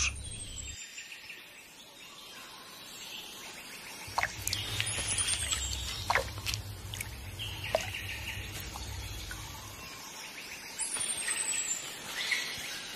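Forest ambience with birds calling: short, high, falling whistles a few seconds apart, scattered sharp clicks, and a low rumble underneath.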